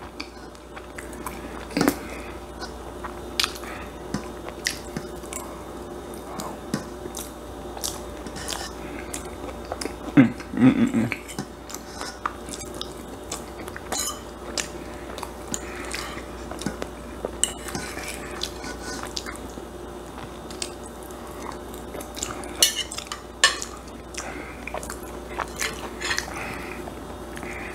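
A metal fork clinks and scrapes against a plate in irregular sharp clicks as bites of shepherd's pie are taken, with close-miked chewing in between.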